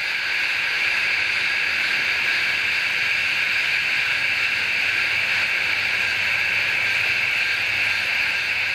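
A steady, unbroken chorus of insects, a high, even hiss with no breaks or changes.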